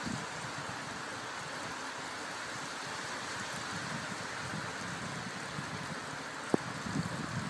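Steady rush of wind on the microphone and tyres rolling on a wet path while riding along. One sharp click about six and a half seconds in.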